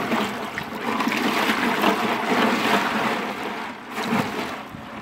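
Ice water sloshing and ice cubes clinking in a plastic cooler as a hand swishes a cleaned chicken carcass through the ice bath, chilling the fresh-butchered bird. The sloshing eases off near the end.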